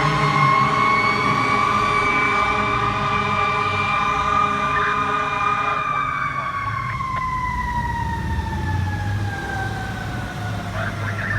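Fire truck siren holding a high wail, then winding slowly down over the last five seconds. Under it a steady air horn blast sounds and cuts off about six seconds in, over a low engine rumble.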